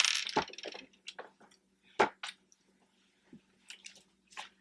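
Wet mouth sounds of eating cheesy pasta in vodka sauce: a brief slurping hiss at the start, then squishy chewing with a few sharp clicks, the loudest about two seconds in.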